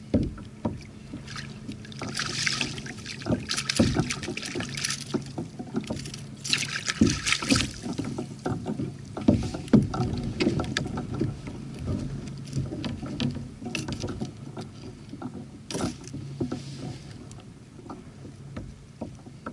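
A small redfish splashing at the surface as it is reeled alongside a plastic kayak and lifted aboard, with knocks and clicks of handling against the hull. The splashing comes in two spells in the first half; scattered knocks follow as the fish is held and unhooked.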